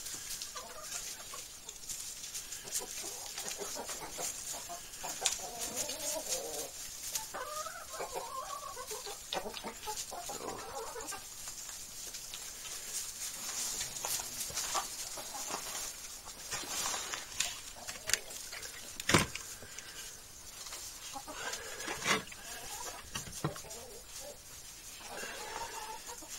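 A flock of hens clucking, with scattered small ticks and one sharp knock about two-thirds of the way through.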